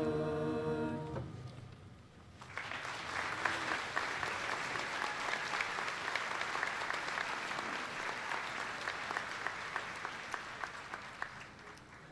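A choir holds a final sung chord that stops about a second in and rings off briefly. After a short pause, an audience applauds, the clapping thinning out near the end.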